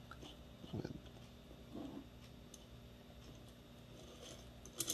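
Faint clicks and taps of small metal parts being handled on an opened airsoft Ver3 gearbox, with a few sharper clicks near the end.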